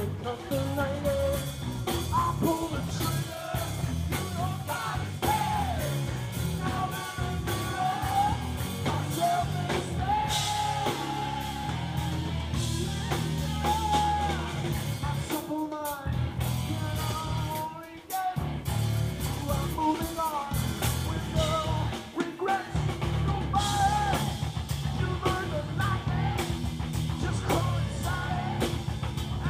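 Live rock band playing: bass guitar and drum kit under a sung lead vocal. The music drops out for a moment twice in the second half.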